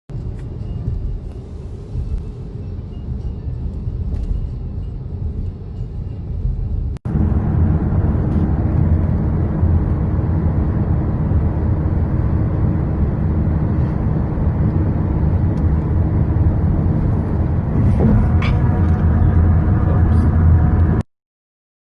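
Hailstorm: a loud, dense, steady rush of falling hail, heaviest in the low range. It breaks off for an instant about seven seconds in and comes back louder, then stops abruptly just before the end.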